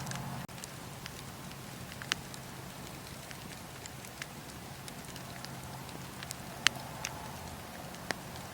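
Wood fire burning in a fireplace, crackling: a steady low rush of flames with sharp pops scattered irregularly, the loudest pop about two-thirds of the way in. The sound drops out briefly about half a second in.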